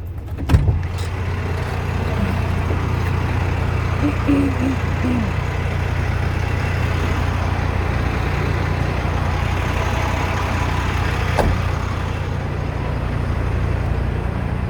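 Steady engine hum and road noise heard from inside a vehicle's cab, with a sharp click about half a second in.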